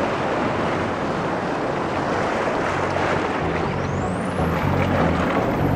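Seawater surging and rushing through a narrow gap between mussel-covered rocks: a loud, steady roar of surf and foam.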